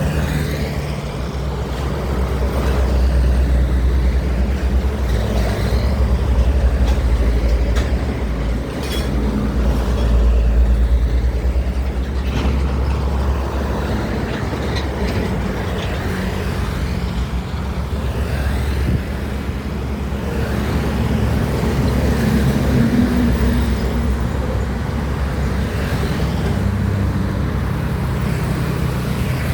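Heavy diesel truck traffic on a highway: a continuous low engine rumble with tyre and road noise that swells and eases several times.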